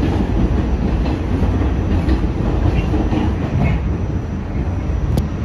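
R46 subway train running along the track: a steady rumble of wheels on rail with light clatter, and a single sharp click near the end.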